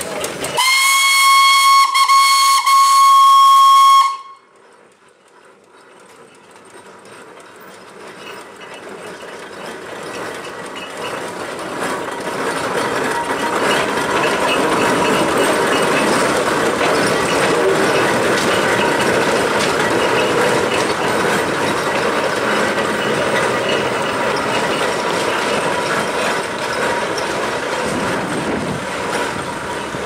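A 1922 Aveling & Porter steam road roller sounds its steam whistle loudly, in one high blast of about three and a half seconds that cuts off sharply. After that come the roller's steam engine and its iron rolls on the road, growing louder over about ten seconds as it approaches, then steady as it passes.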